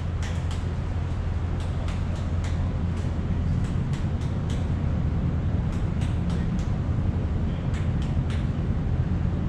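Steady low rumble of a cruise ship under way, with scattered short sharp clicks and ticks over it.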